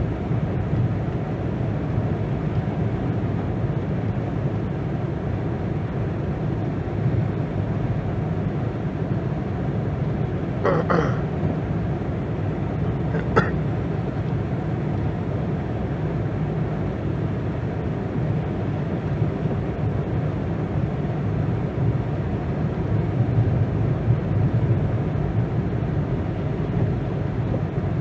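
Steady low rumble of a car driving, with two brief higher-pitched sounds about halfway through.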